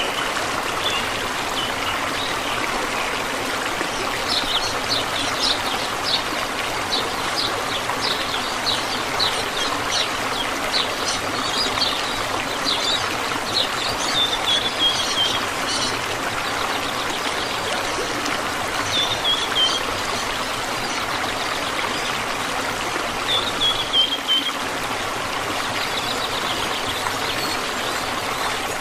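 Waterfall: water falling and splashing in a steady rush, with short high chirps over it in several runs.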